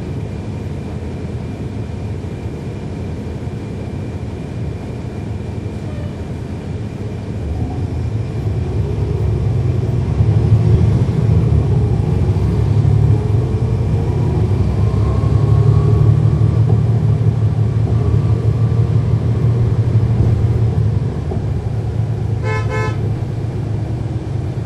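Cummins ISL9 diesel engine of a NABI 40-SFW transit bus, heard from on board. It runs steadily, then about 8 s in it comes under load and grows louder as the bus accelerates, with a faint rising whine from the ZF Ecolife automatic transmission, and eases off about 21 s in. A short horn-like toot sounds near the end.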